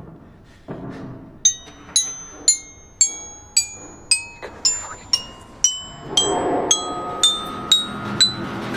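Background music: a bell-like melody of single struck notes, about two a second, each ringing out and fading, over a soft bed that grows fuller about six seconds in.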